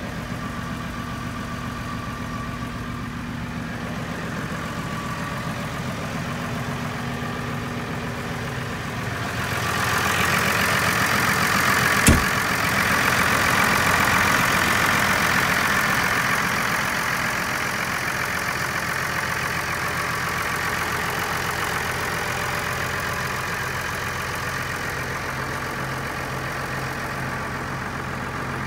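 Massey Ferguson 4370 tractor's diesel engine idling steadily. It is muffled inside the cab and becomes louder and clearer about ten seconds in, once heard from outside the cab. There is one sharp knock about two seconds after that.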